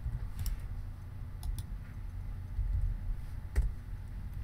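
A few scattered clicks from a computer mouse and keyboard, about four in all, the loudest about three and a half seconds in, over a faint low rumble.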